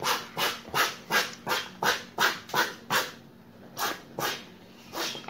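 A stiff plastic squeeze bottle of coloured slime glue squeezed hard again and again, its nozzle sputtering out glue and air in short squelching spurts about three times a second, then slowing to a few spaced spurts near the end.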